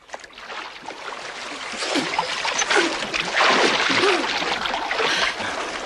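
Seawater splashing and sloshing as swimmers thrash at the surface beside a boat, with small waves lapping. It builds up quickly after a sudden start, with the heaviest splashing in the middle.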